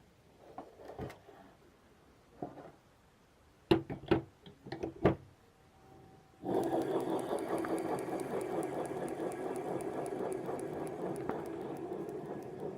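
A few knocks, then about six seconds in a small boat motor starts up abruptly and runs steadily with a fast, even mechanical clatter.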